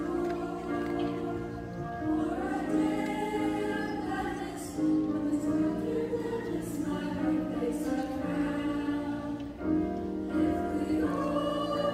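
Youth choir of treble voices singing long held notes, with grand piano accompaniment.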